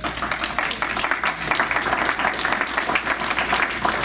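Audience applauding: many hands clapping, starting suddenly.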